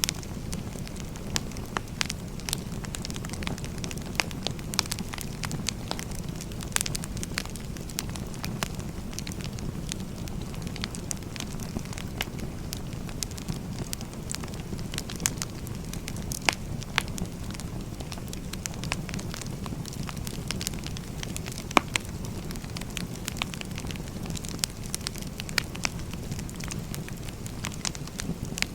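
Wood fire burning: a steady low rumble with frequent irregular crackles from the burning logs, and now and then a louder pop.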